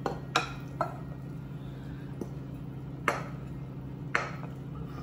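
A spatula knocking against a glass mixing bowl while the last of a squash casserole mixture is scraped out: four short, sharp taps spread over the seconds, one with a brief glassy ring.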